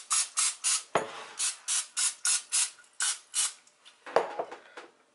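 Aerosol can of cooking oil spray hissing in a quick series of short bursts, about three a second, stopping about three and a half seconds in. A knock sounds about a second in and another near the end.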